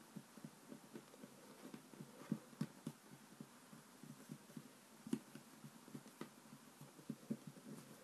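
Soft, irregular thuds of fingers pressing and patting play dough flat against a tabletop, with a few sharper, louder taps among them.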